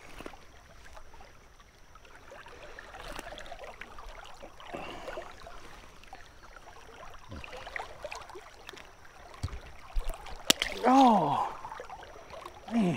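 Shallow river water running steadily past a wading angler's legs. About ten and a half seconds in, a single sharp click, followed by a short wordless vocal sound from a person.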